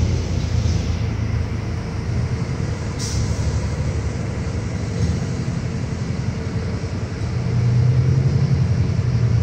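Interior ride noise of a 2022 New Flyer Xcelsior XD40 diesel city bus under way: a steady low engine drone with road rumble, growing louder about eight seconds in.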